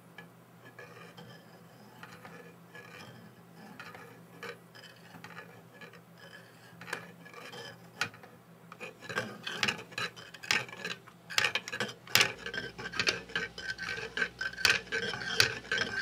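Plastic spherical Geneva drive model being cranked by hand: its parts click and rub as the drive cam indexes the bowl-shaped wheel at a right angle. The clicks are faint and sparse at first, then louder and more frequent from about nine seconds in.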